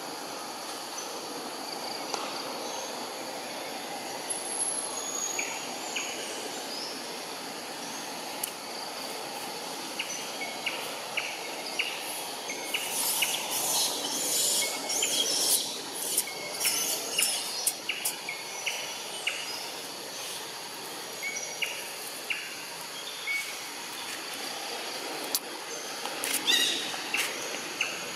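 Outdoor ambience: a steady low background hum, with short high bird chirps repeated many times through the middle. Bursts of sharp crackling or rustling come in the middle and again near the end.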